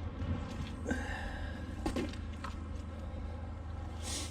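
Faint scrapes and a few short clicks of sludge and debris being pulled off a neodymium fishing magnet, over a steady low rumble.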